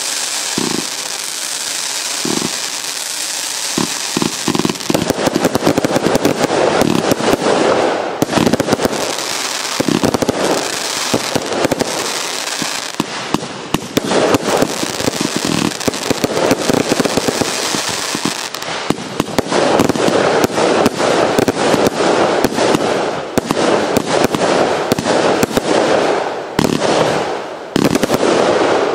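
Event Horizon firework going off in a dense, continuous barrage of bangs and crackling. The first few seconds are more of a steady hiss with scattered thumps.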